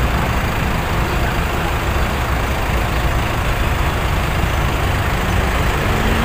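Steady road-traffic noise with a low engine rumble.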